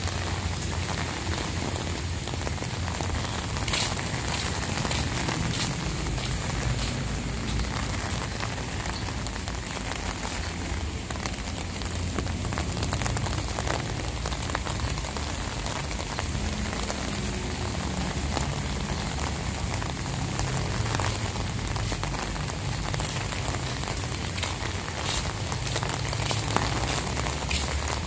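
Strong gusty wind ahead of a rainstorm, rushing through tree foliage with leaves rustling steadily, and a heavy low rumble of wind buffeting the phone's microphone.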